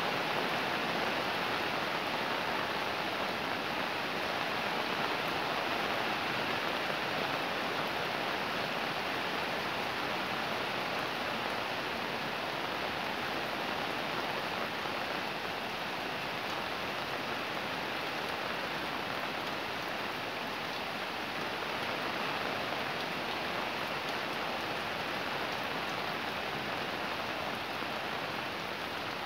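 Fairly heavy rain falling steadily on the street and surrounding surfaces, an even hiss with no breaks.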